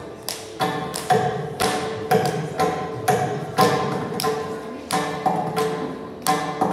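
Mridangam playing solo in Adi tala: a run of sharp strokes at an uneven rhythm, several big strokes a second with lighter ones between, each ringing briefly at the drum's tuned pitch.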